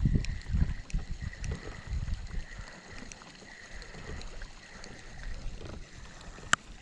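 Water sloshing and rumbling against a small boat, strongest in the first couple of seconds, with scattered faint ticks and a faint steady high tone. One sharp click about six and a half seconds in.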